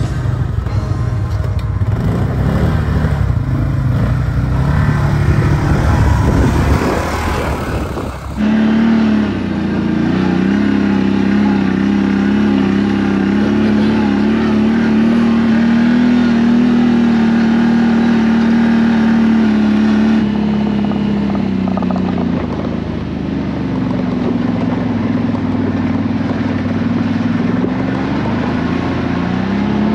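ATV engine running under way on the trail. About eight seconds in the sound changes abruptly from a rougher, lower stretch to a steady, higher engine note, which sags later on and climbs again near the end.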